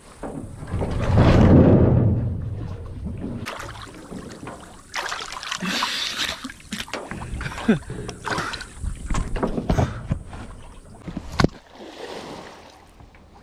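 Water splashing and sloshing around a small boat, with knocks and sharp clicks from the boat and gear. The loudest part is a low rushing swell about a second in.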